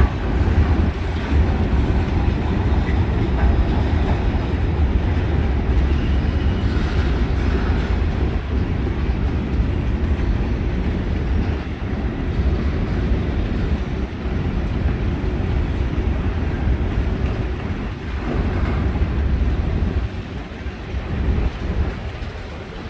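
Freight train cars rolling past with a steady rumble and clatter of steel wheels on the rails, easing off a little near the end.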